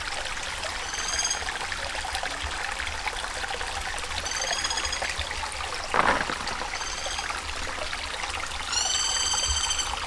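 Flowing stream water with sloshing in a basin of washed mushrooms. A bird calls four times in short, high, ringing notes, the last one longer; it is taken to be a woodpecker. About six seconds in comes a single wet thud as a handful of wet mushroom pieces drops onto a leaf.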